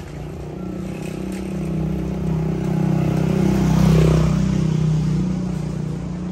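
A motor vehicle engine passing close by: a steady engine hum that grows louder to a peak about four seconds in, then fades away.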